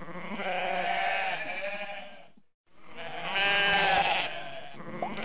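Goat bleating: two long bleats, separated by a brief moment of silence about two and a half seconds in.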